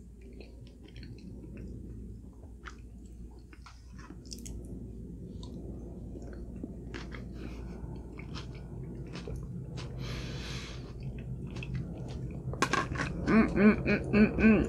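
A person chewing food, with wet mouth clicks throughout. Near the end come a few short voiced 'mm' sounds, louder than the chewing.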